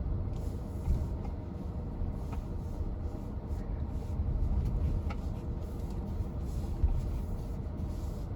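Steady low rumble of an MG HS SUV driving over rough off-road ground, with a few light knocks.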